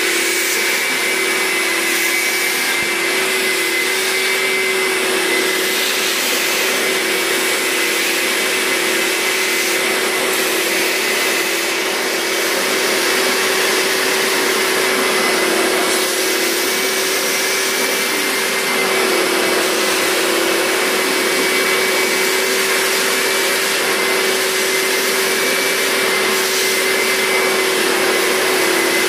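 Upholstery-cleaning wet vacuum running steadily, a rushing suction noise with a steady motor hum and a higher whine, as its nozzle is drawn over a wetted fabric sofa seat to extract the washing water.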